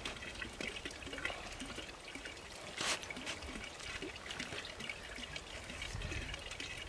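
Steady trickle of running water, with a few sharp clicks and one louder snap about three seconds in.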